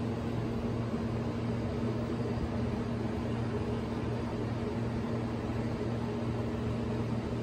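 Steady hum of kitchen machinery, a low drone over an even rushing hiss, like a ventilation or oven fan running. It cuts off abruptly at the very end.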